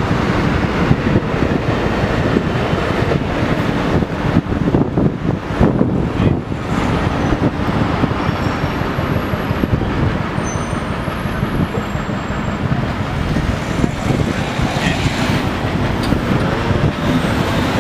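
Steady city road traffic: the engines and tyres of passing vehicles, a bus among them, with no pause or change.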